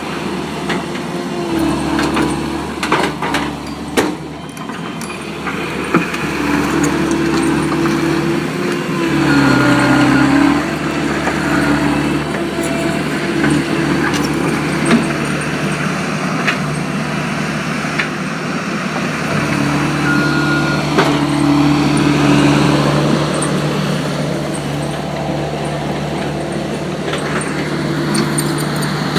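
Diesel engine of heavy earthmoving equipment running steadily while working dirt. Its pitch and loudness rise twice as it takes on load, and a few sharp clanks come in the first few seconds.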